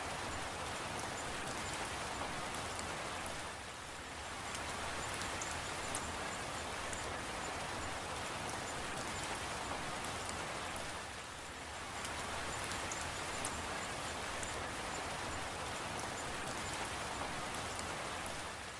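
Steady rain: an even hiss with scattered fine drop ticks, easing off briefly twice.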